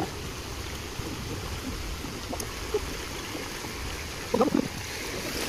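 Small stream flowing steadily. About four and a half seconds in comes a short, louder vocal sound.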